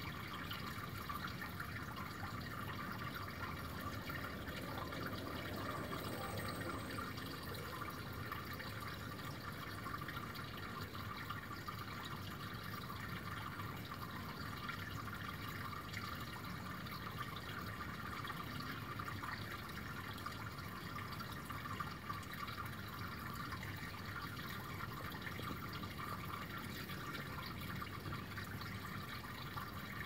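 Small brook trickling and splashing steadily over a shallow bed.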